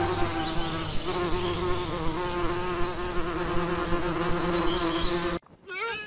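Bumblebee buzzing steadily, the hum wavering a little in pitch, then cutting off abruptly near the end. A short bleating animal call follows.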